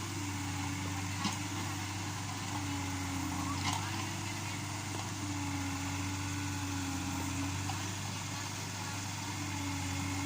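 Yanmar B37 mini excavator's diesel engine running steadily, with two short knocks about a second and nearly four seconds in.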